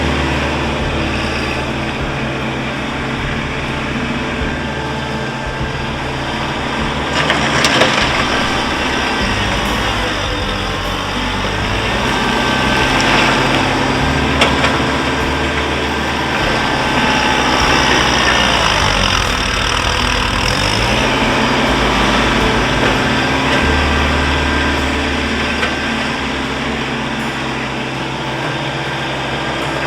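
Diesel engine running steadily, changing speed a few times, with a short rattle about eight seconds in.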